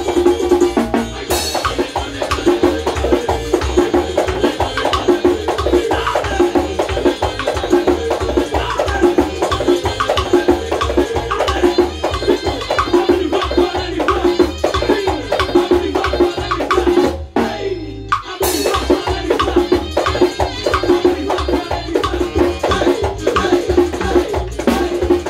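Dominican tambora played with a stick and the bare hand in a fast, steady rhythm, over recorded band music with a bass line. The music drops out for about a second, seventeen seconds in, then comes back in with a hit.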